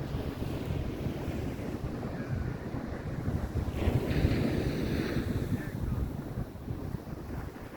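Wind buffeting the microphone over the wash of surf on a beach, with the surf swelling louder about four seconds in.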